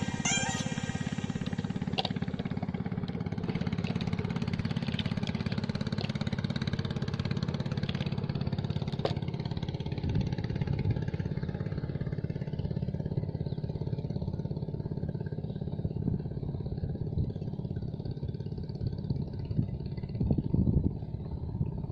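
A small engine running steadily, with a few knocks near the end.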